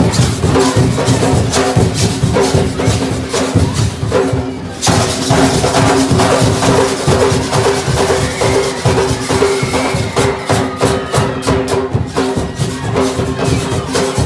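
School percussion band playing tall hand drums in a steady rhythm, dense with many strokes, with a brief dip in loudness a little under five seconds in.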